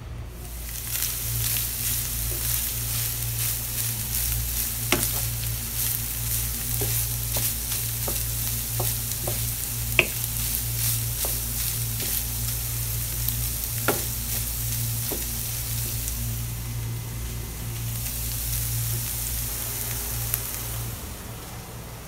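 Ground meat and chopped onions sizzling in a frying pan as a wooden spatula stirs them, with a few sharp knocks of the spatula against the pan.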